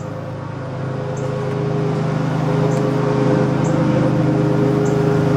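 A steady low motor hum that grows louder over the first couple of seconds and then holds, with faint high clicks about once a second.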